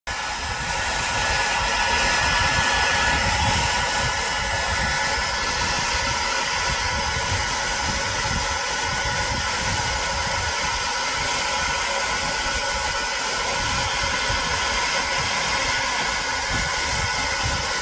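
Hair dryer running steadily: a continuous rush of blown air with a faint steady whine.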